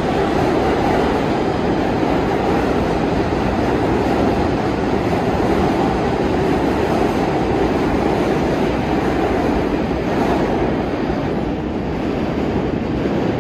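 New York City subway train running through an underground station: a loud, steady rumble of wheels on rail.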